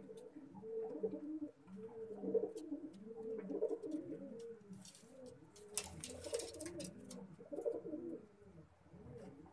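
Pet pigeons cooing: repeated low, throaty coo phrases that overlap one another, with a few brief clicks and scuffles about halfway through.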